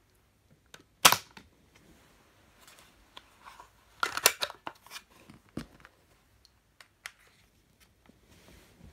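Toy suction-cup dart pistol (Ultra Suction Colt) firing once with a sharp snap about a second in, followed by smaller clicks and rattles as the toy is cocked and a new suction dart is pushed into the muzzle.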